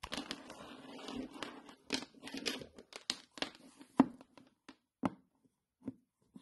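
Handling noise from a plastic e-bike charger brick and its cable being picked up and turned over: rustling and rubbing for the first two or three seconds, then a few separate knocks, the loudest about four seconds in.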